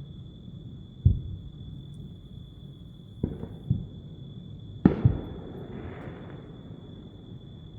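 Distant fireworks going off: five dull booms, two of them in quick pairs. The loudest pair, about five seconds in, is followed by a brief crackling fizz.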